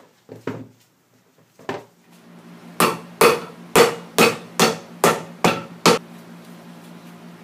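Hammer striking a freshly glued heel piece to set it on a shoe held upside down on a stand: eight sharp, evenly spaced blows, about two and a half a second. Before them come a few softer knocks from handling the sole material.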